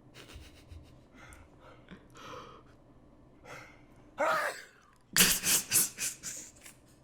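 A man's breathy build-up to a sneeze: short faint intakes of breath, a loud drawn-in 'ah' about four seconds in, then a loud, explosive sneeze about a second later.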